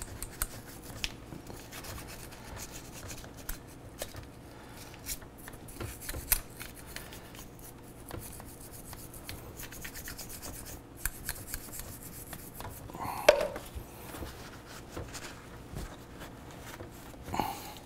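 Cloth rubbing and wiping on a motorcycle brake caliper piston, with scattered light clicks and handling noises from the caliper, and a brief louder sound about thirteen seconds in.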